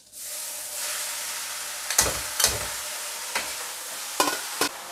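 Chopped cabbage and other vegetables hitting the hot oil in a steel wok, setting off a sizzle, with a metal spatula clacking against the wok about five times as they are stir-fried.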